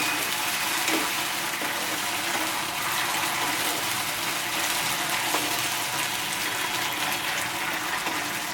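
Sliced onions and capsicum sizzling steadily in hot oil and sauce in a pan over high heat as they are stir-fried.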